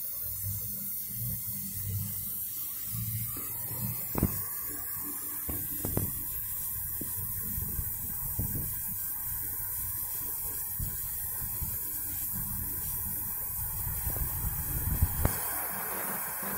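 Oxy-acetylene welding torch flame burning with a steady hiss, with a few sharp knocks: one about four seconds in, one about six seconds in and a couple near the end.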